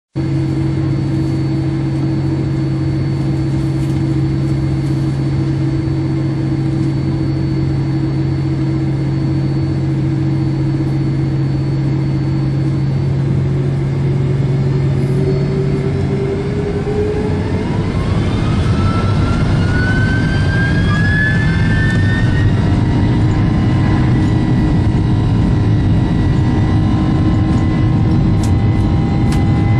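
Boeing 767 turbofan engines heard from inside the cabin over the wing: a steady low hum at first, then about halfway through the engines spool up to takeoff thrust, a whine rising in pitch for several seconds before settling into a louder steady tone.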